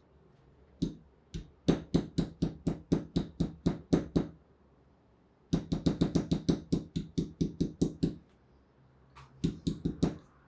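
Rapid hard tapping or knocking, about five knocks a second, in three runs separated by short pauses, the middle run the longest.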